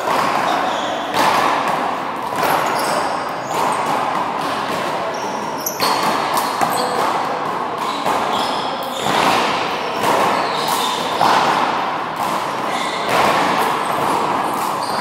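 A rubber handball smacking against the front wall and floor during a rally, every second or two, with shuffling sneaker footsteps, all echoing in a large indoor court.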